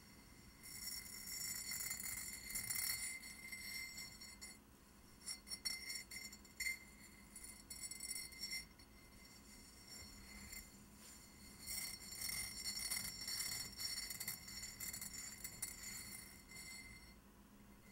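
Fingernails scratching and tracing over a ceramic vase in spells of dry, scratchy rasping, with a few sharp clicks around the middle.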